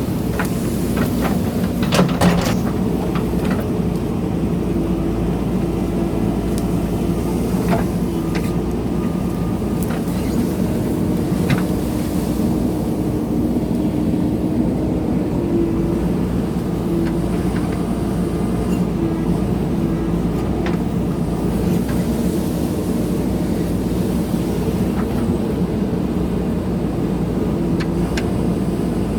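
JCB backhoe loader's diesel engine running steadily while it digs, with a few sharp knocks.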